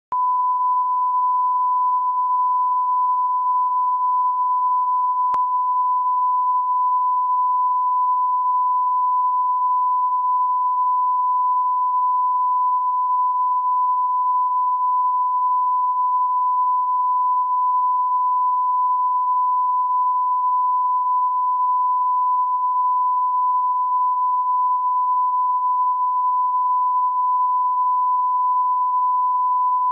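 A 1 kHz reference tone played with the colour bars: one steady, unbroken high beep at constant level.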